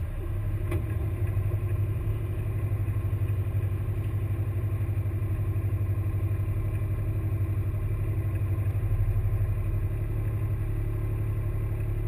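Airsoft combat vehicle's engine idling steadily with an even low rumble, heard from the camera mounted on the vehicle while it stands still.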